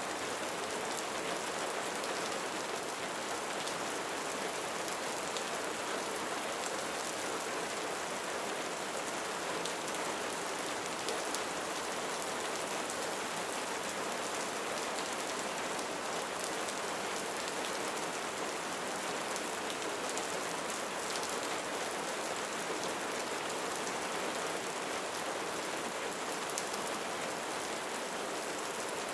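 Steady rain falling on a roof.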